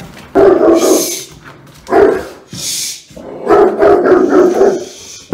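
Large Rottweiler barking in three bouts of rapid, deep barks, the longest near the end.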